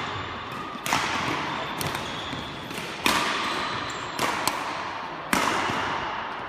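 Badminton rackets hitting a shuttlecock during a doubles rally: a handful of sharp hits a second or two apart, each echoing in the large sports hall.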